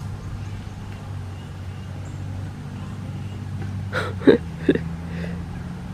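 A steady, low mechanical hum, like a running motor, with three short, sharp sounds a little past the middle.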